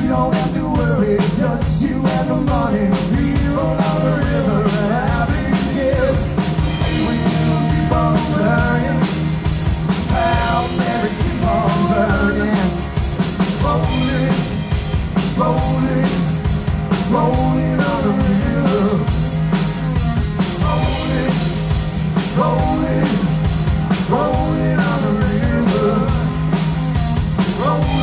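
Live rock band playing: electric guitar, electric bass and drum kit, with a male lead vocal singing over a steady beat.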